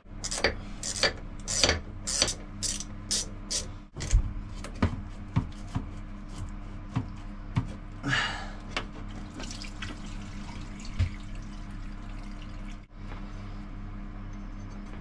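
A quick run of sharp knocks, about two a second for the first few seconds, then sparser and fainter ones, over a steady low hum.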